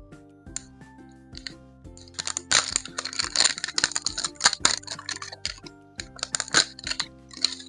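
Soft background music with held notes, over which packaging crinkles and crackles as it is handled. The crackling comes in clusters, loudest from about two to five and a half seconds in and again around six to seven seconds.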